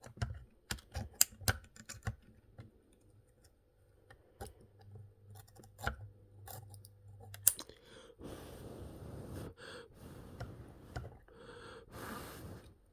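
Small clicks and taps of tools and parts being handled while soldering, with an old transformer soldering gun humming low and steady for about three seconds in the middle. Over the last few seconds there is a rough rustling noise in several stretches.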